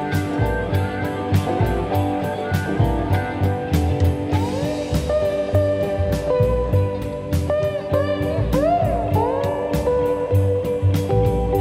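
Background music: a blues-style electric guitar whose notes bend and slide from about halfway in, over a steady beat.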